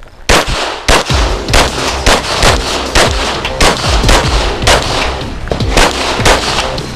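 Glock 22 .40 S&W pistol firing rapidly, starting about a third of a second in: about a dozen loud shots at an uneven pace of roughly one to two a second, each with a brief ringing echo.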